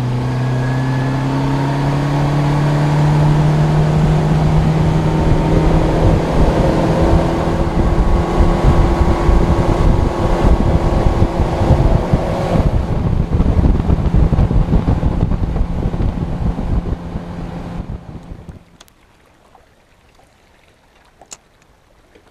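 Boat's outboard motor revving up over the first few seconds, then running steadily under way, with heavy wind rumble on the microphone. It cuts off suddenly near the end, leaving a much quieter stretch with a few faint clicks.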